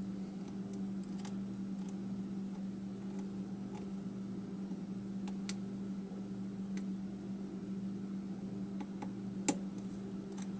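Faint, scattered metallic clicks of a lock pick and tension tool working the pin stack of a corroded American 5200 padlock, with one sharper click near the end, over a steady low hum.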